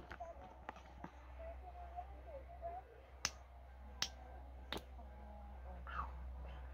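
A handful of sharp plastic clicks from handling a small skincare tube, the three clearest coming about a second apart in the middle, over faint room tone.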